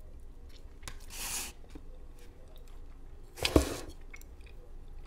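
A person eating cheesecake from a spoon: soft mouth and chewing sounds with small clicks, a breathy hiss about a second in, and a sharp knock about three and a half seconds in.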